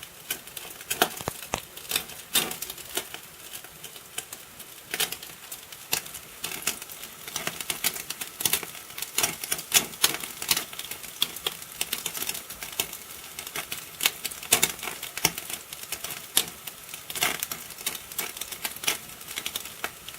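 Dry-aged pork chop sizzling under a homemade overhead-heat grill, its fat crackling and spitting in many irregular sharp pops over a steady hiss.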